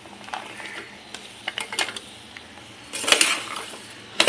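Chopped jackfruit seeds dropping from a plate into a pressure cooker with scattered light clicks, then a metal spoon clinking and scraping against the pot as stirring begins, loudest about three seconds in.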